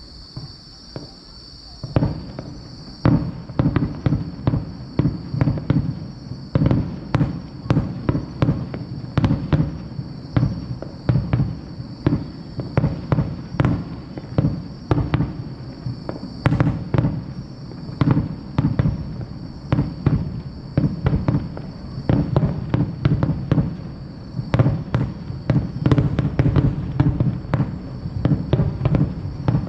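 Fireworks display: aerial shells bursting one after another, a few scattered bursts at first, then from about three seconds in a quick, steady barrage of about one to two bursts a second.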